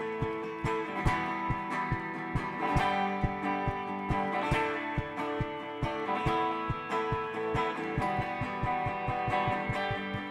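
Electric guitar playing an instrumental passage: steadily picked chords over a low pulse about four times a second.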